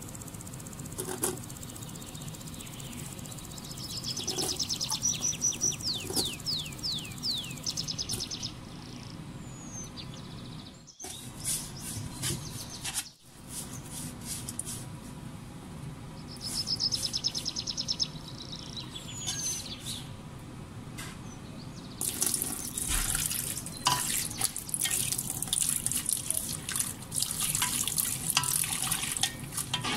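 Plastic slotted spatula stirring and scraping fried onion and flour in a non-stick pan. About two-thirds of the way through, water is poured in and the stirring turns wet and splashy. Twice a bird chirps in a quick falling series in the background.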